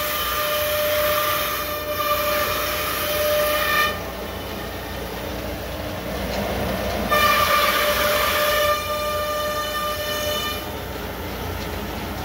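CNC router spindle cutting a wood sheet, a high whine with a stack of overtones. It drops away about four seconds in, comes back louder near seven seconds, and fades again near eleven seconds, over a steady low noise.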